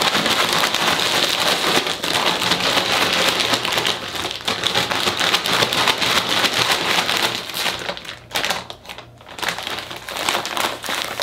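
Foil potato-chip bag crinkling as it is shaken hard, dry instant mashed potato flakes and crushed chips rustling inside. The shaking drops off briefly about eight seconds in, then starts again.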